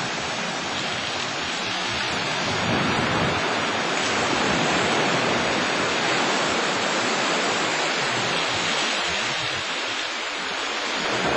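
Sea surf washing onto a beach: a steady rush of waves that swells gently in the middle and eases near the end.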